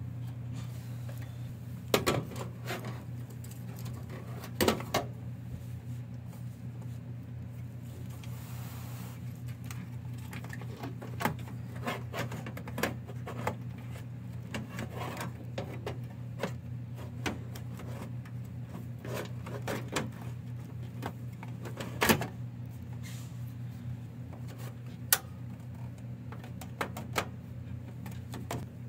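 Irregular metallic clicks and knocks of hands handling a steel desktop computer case and its power supply unit, with a brief scraping slide in between, over a steady low hum. The sharpest knocks come about two seconds in, around five seconds and past the twenty-second mark.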